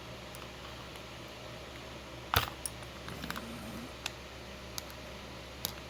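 Sharp metallic clicks and taps from a Medeco lock cylinder being handled and taken apart. One loud click comes about two and a half seconds in, followed by several lighter clicks.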